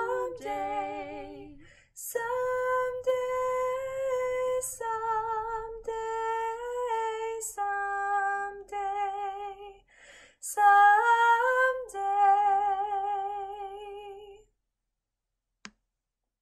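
Soprano and alto women's voices singing the repeated word "someday" in long held notes with vibrato, the soprano carrying on alone to the end of the phrase. The singing stops about 14 seconds in, and a faint click follows.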